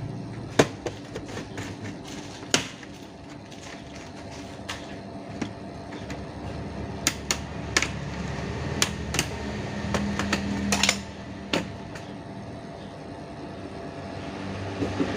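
Scattered sharp clicks and taps of hands and tools working on a laptop's plastic case, about a dozen at irregular intervals, over a steady low hum.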